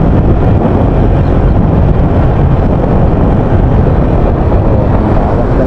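Steady, loud rumble of wind and road noise on an action camera's built-in microphone, riding a motorcycle at speed.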